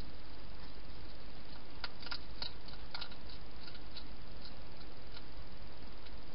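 A hedgehog feeding at a bowl inside a plastic feeding station: a run of small, irregular mouth clicks for a few seconds in the middle, over a steady hiss.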